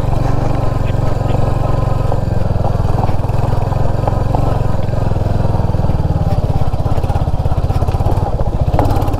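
Royal Enfield Hunter 350's single-cylinder engine running at low speed with a steady low thump of evenly spaced firing pulses, as the motorcycle rolls over a rough gravel and dirt track.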